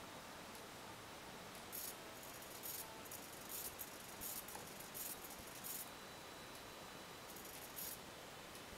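Egg-drawing robot's fine pen scratching against the eggshell in short, irregular strokes as the egg turns, over a faint steady hiss.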